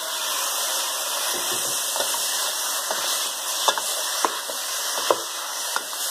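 Raw pork pieces sizzling in hot oil with fried shallot and garlic in a stainless steel pot as they are stirred with a wooden spatula: a steady hiss with a few sharp knocks of the spatula against the pot.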